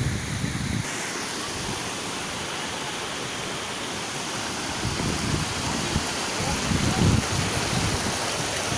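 Steady rushing water from a waterfall and a rocky mountain stream, with a few low rumbles of wind on the microphone, strongest about seven seconds in.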